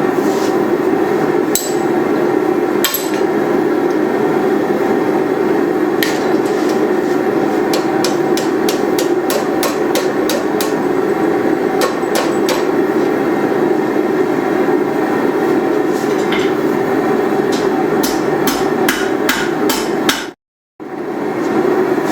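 Hammer blows on hot steel at the anvil, in scattered strikes and then quick runs of several blows a second, over a steady loud roar from the forge.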